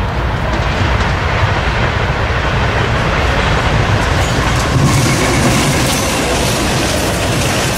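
Norfolk Southern diesel freight locomotives approaching and passing close by, their engine rumble and rail noise building. Wheel and rail noise brightens about five seconds in as the locomotives go past.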